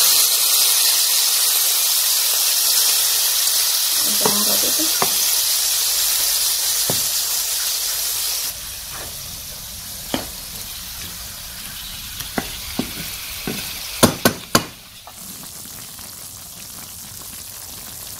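Chopped beef frying in oil in a skillet, sizzling as it starts to give off its own juice, while being stirred with a wooden spatula. About halfway the sizzle drops suddenly to a quieter hiss, and then the spatula knocks against the pan several times.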